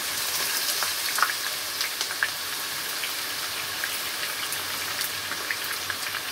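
Sliced raw onions sizzling in hot oil in a kadhai as they go in for deep-frying: a steady high hiss with scattered crackles and pops.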